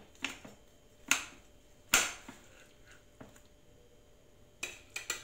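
Metal server cutting into a baked vegetable gratin and knocking against the ceramic baking dish: sharp clicks about a second apart, then a quick run of clicks near the end as the portion is lifted out onto the plate.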